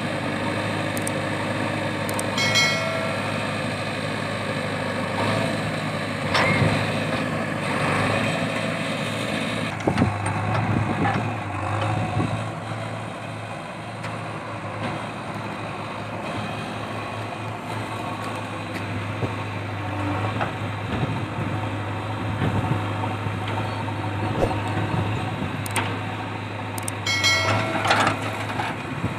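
Diesel engines of a JCB 3DX backhoe loader and a Swaraj 744 FE tractor running steadily, with a few knocks, clatter and brief high whines from the backhoe working. Near the end the backhoe bucket dumps a load of earth into the tractor trolley with a rush of clatter.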